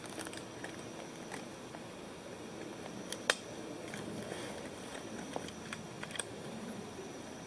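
Close rustling of clothing and gear being handled right by the microphone, with scattered light clicks and one sharper click about three seconds in, over a steady hiss.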